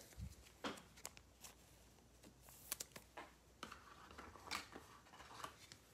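Near silence with faint, scattered clicks and soft rustles: trading cards and foil pack wrappers being handled.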